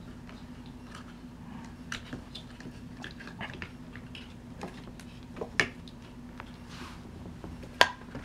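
Irregular plastic clicks and rustling as hands push the battery cable into the chassis of an RC truck, with one sharp click near the end, over a steady low hum.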